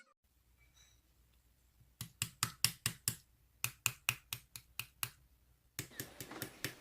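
Slime being squeezed and poked by hand, giving a quick run of sharp clicking pops about five a second, then after a short pause more clicks near the end.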